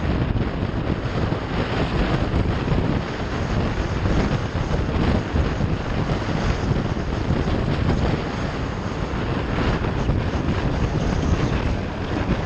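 Steady wind rush on the microphone of a moving motorcycle, with the bike's running noise mixed in beneath it.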